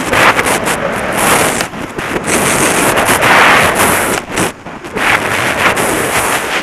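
Wind buffeting a helmet-mounted camera's microphone at speed, mixed with skis carving and scraping on hard-packed snow; the loud rushing noise swells and eases every second or so.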